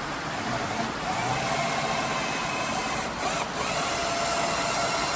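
Electric drill running under load with a steady whine, boring a cable hole in a control cabinet; the whine dips briefly about three seconds in. A steady hiss of heavy rain runs underneath.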